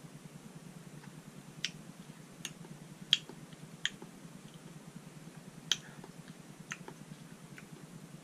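Mouth clicks and lip smacks, about seven short sharp ones at uneven intervals, as a man works a mouthful of hot pepper powder around his tongue. A steady low hum runs underneath.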